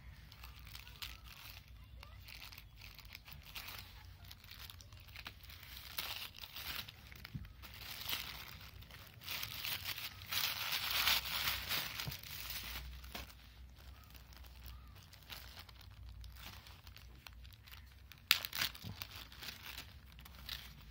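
Thin plastic courier mailer being cut open with scissors and torn, then a clear plastic zip bag crinkling as it is handled: an irregular crackly rustling, loudest in a stretch about ten to twelve seconds in, with one sharp tap about eighteen seconds in.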